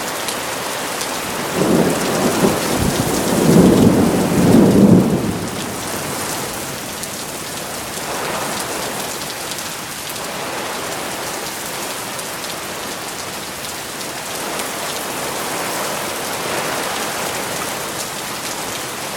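Steady rain falling, with a low rumble of distant thunder that builds about two seconds in, peaks at about four to five seconds, and fades by six seconds.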